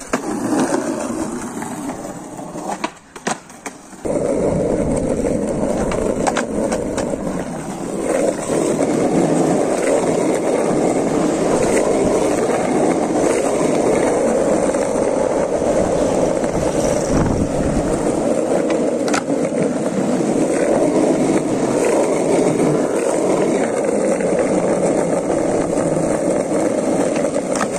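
Skateboard wheels rolling on rough concrete. A steady rumble sets in about four seconds in, with occasional sharp clicks.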